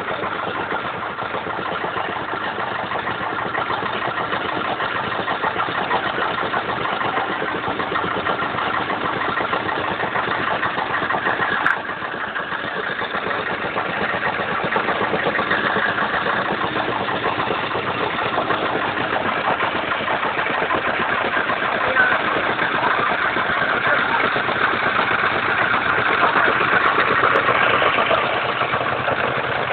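Several vintage tractor and stationary engines running together at idle, a steady mixed engine noise.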